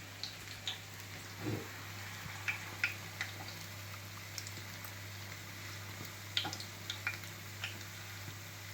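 Pancake batter frying in shallow sunflower oil in a pan, with scattered pops and crackles of spitting oil over a steady low hum.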